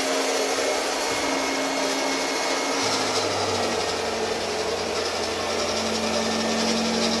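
Electric round-knife cloth-cutting machine (Octa RC-100) running steadily as it cuts fabric, a high motor whine over a hum; a deeper hum joins about three seconds in.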